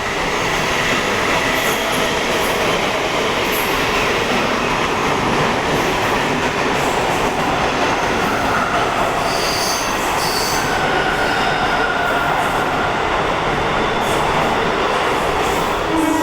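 Train passing at speed: a loud, steady rumble and rattle of wheels on rails. Short high wheel squeals come about nine to ten seconds in, and a horn starts sounding at the very end.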